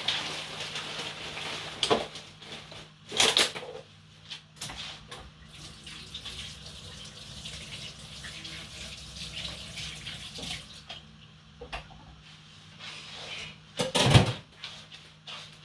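A kitchen tap running into a sink while hands are washed under it, with a few knocks and clatters at the sink, the loudest one near the end.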